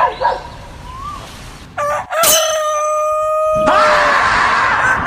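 A rooster crowing: one long call begins about two seconds in, holds a steady note, then turns harsher and noisier before it ends.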